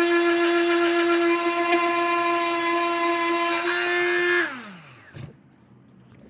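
Electric sander running at a steady pitch, then switched off about four and a half seconds in, its motor winding down to a stop.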